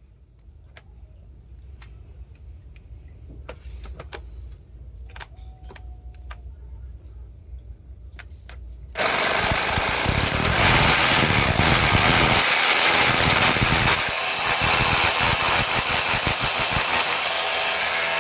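Makita DHR280 cordless SDS-plus rotary hammer drilling in hammer mode, tested after its worn and broken rotation gears were replaced. A low rumble with scattered clicks comes first; about nine seconds in, the loud hammer-drilling sound starts suddenly and runs until it cuts off abruptly.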